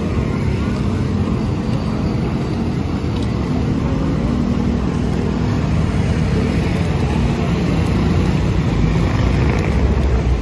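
Busy road traffic: cars and motorcycles passing close by, a steady low rumble of engines and tyres.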